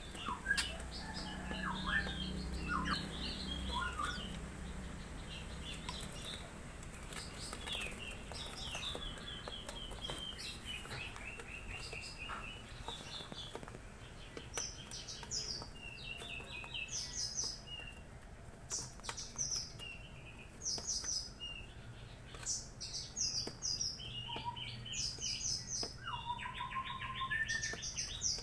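Young Javan bushlarks chirping: many short, high chirps and quick rattling trills, repeated throughout.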